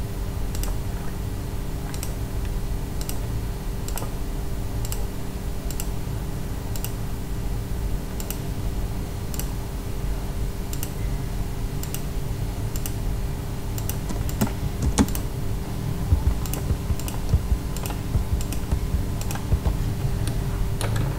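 Sparse, irregular clicks of a computer keyboard and mouse, about one or two a second, as a drawing is worked on a computer, over a steady low electrical hum.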